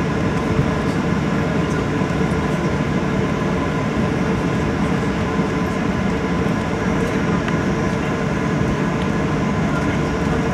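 Cabin noise inside a Boeing 737-900ER: its CFM56-7B jet engines run with a steady whine over an even rumble.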